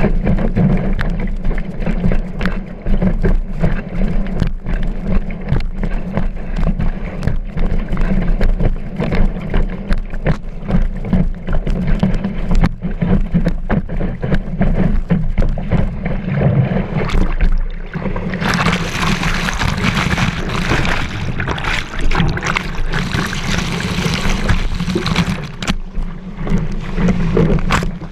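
Kiteboard planing over choppy water, heard from a camera mounted on the board: a steady low rumble of wind buffeting the microphone and water rushing under the board, with irregular knocks as it hits the chop. A louder hiss of spraying water sets in about eighteen seconds in and lasts some seven seconds.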